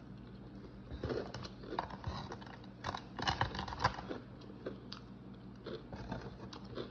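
Close-up crunching and chewing of crisp fried food in a person's mouth: irregular crackly crunches, busiest from about one to four seconds in.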